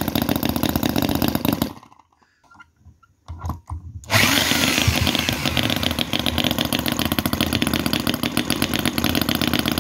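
Microcosm R28 model 4.3cc 45-degree V-twin gasoline engine running fast, dying away about two seconds in, then, after a short near-silence broken by a few clicks, firing up again about four seconds in and running on steadily.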